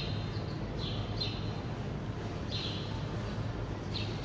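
Steady low hum of supermarket refrigeration and ventilation, with short high chirps repeating irregularly about once a second.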